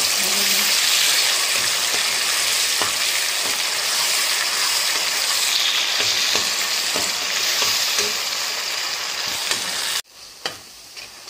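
Tomato paste and ground spices sizzling in hot oil in a non-stick kadai while a spatula stirs and scrapes them around the pan: the masala being fried down. The sizzling cuts off suddenly near the end, leaving a few light clicks.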